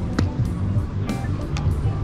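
Background music with drums and a moving bass line.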